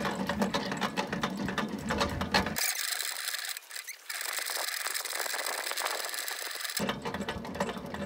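Hand crank of an audio station's generator being turned quickly: a fast, continuous clicking whir of gears and ratchet. For a few seconds in the middle the sound turns thinner and hissier, then the fuller clatter returns.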